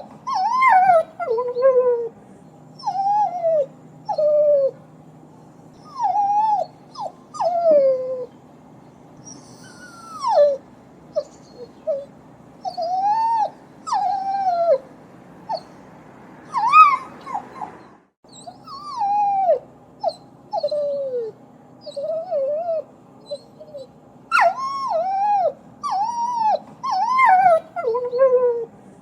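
Dog whining and whimpering: many short, high cries that mostly slide down in pitch, coming in clusters with brief pauses between them.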